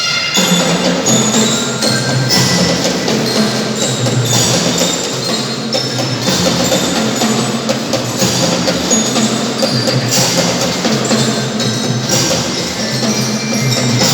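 Children's drum band playing a tune: a metal bell-lyra melody ringing over steady drums.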